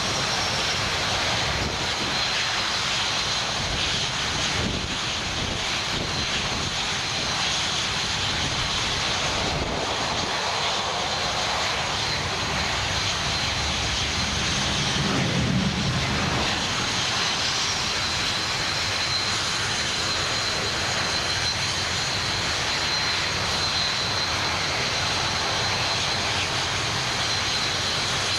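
Jet aircraft engines heard in flight: a steady rushing noise with a thin high whine running through it, swelling slightly about halfway through.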